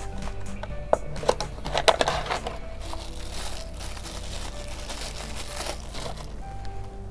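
Clear plastic packing bag crinkling as it is handled and opened, with sharp crackles about a second in and a softer rustle that fades out near the end, over background music.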